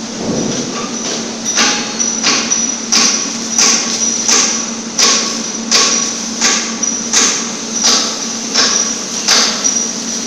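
Sharp metallic knocks that ring briefly, coming evenly about three every two seconds from a second and a half in, over a steady low machine hum.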